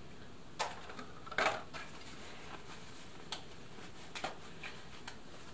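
Light clicks and taps of small hard tools and parts being handled and set down, five or so spread over a few seconds, the loudest about a second and a half in.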